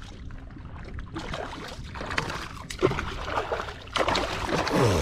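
Hooked bluefish thrashing and splashing at the surface beside a kayak, in irregular bursts of splashing that start about a second in.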